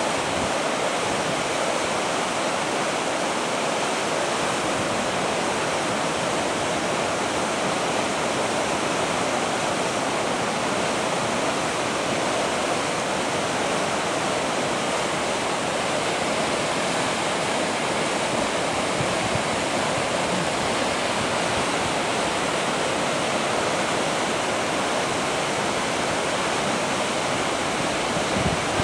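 Fast river rapids rushing steadily, a constant even roar of water with no breaks.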